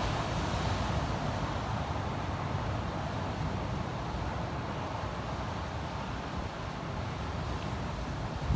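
Wind buffeting the microphone over the steady wash of ocean surf breaking along the beach.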